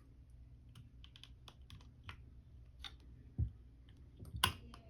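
Small metallic clicks and taps of a pin punch being worked into the pin holes of an AR-9 lower receiver, with a dull knock about three and a half seconds in and sharper clicks near the end.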